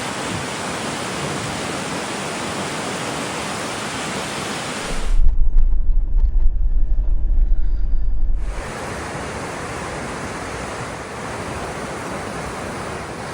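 Waterfall rushing with a steady roar of falling water. From about five seconds in, for about four seconds, the hiss drops away under a louder, deep, uneven rumble, then the rush of water returns.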